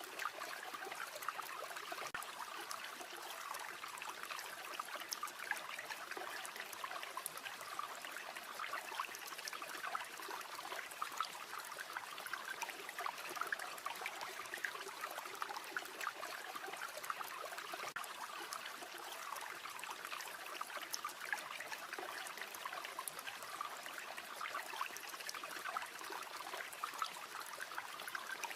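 A river flowing steadily, with a campfire crackling in small ticks throughout.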